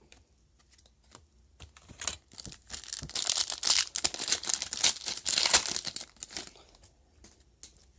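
A 2017-18 Panini Status basketball card pack being torn open, its wrapper tearing and crinkling. A few light handling clicks come first, then a loud stretch of tearing and crinkling from about three seconds in to about six seconds.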